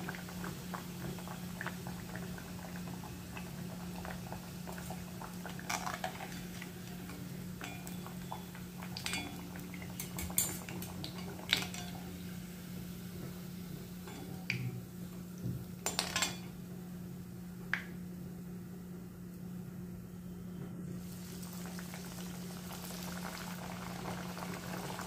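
Hot oil sizzling around alu vadi (colocasia-leaf roll) slices deep-frying in a heavy pot, while a metal slotted spoon and wire strainer scrape and clink against the pot several times as the fried slices are lifted out. The sizzling thins out for a few seconds, then fills in again near the end as fresh slices go into the oil, over a steady low hum.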